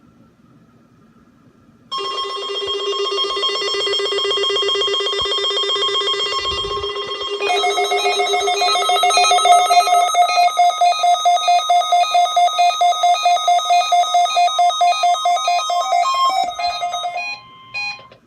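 A ringing, rapidly pulsing electronic alert tone that steps to a higher pitch about a third of the way through and stops shortly before the end.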